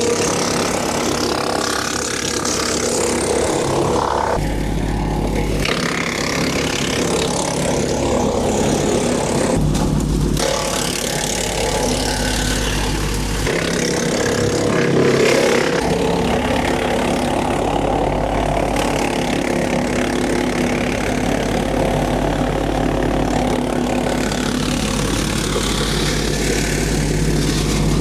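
Wood chipper's engine running steadily, its low note shifting several times as the load changes.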